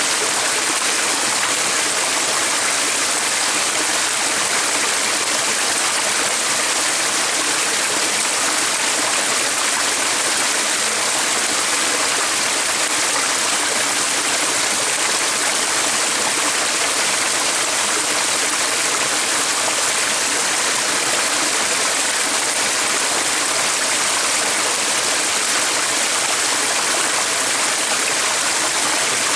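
Flowing water of a stream: an even, continuous rush with no distinct events.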